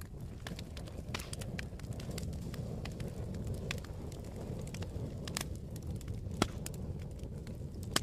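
Wood fire burning in a fireplace: a steady low rumble of flames with scattered crackles and pops, the sharpest pop about six and a half seconds in.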